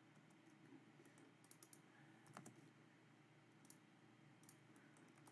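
Faint, scattered clicks of a computer keyboard and mouse being used, with near silence between them.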